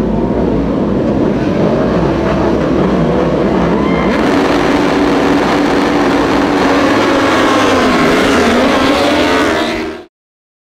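Several superbike engines revving together, their pitch rising and falling. The sound gets brighter and louder about four seconds in, then cuts off abruptly near the end.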